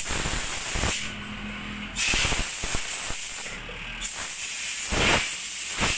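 Compressed-air blow gun hissing in three long blasts with short breaks between them, blowing dirt out of a badly clogged motorcycle air filter.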